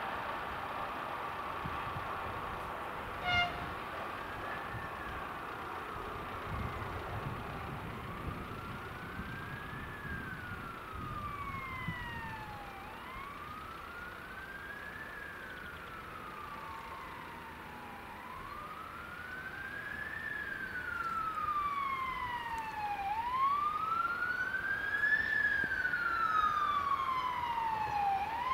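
Emergency vehicle siren wailing in a slow rise and fall, about one cycle every five seconds, growing louder near the end as it approaches. A single short beep sounds about three seconds in.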